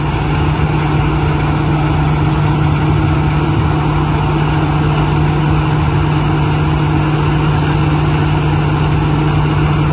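P. Charoen Phatthana rice combine harvester running steadily, its engine and machinery giving a constant low hum under a wide mechanical noise.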